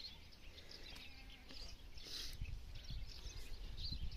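Faint outdoor ambience: low wind rumble on the microphone, growing toward the end, with scattered short high chirps of small birds and a brief rustle about two seconds in.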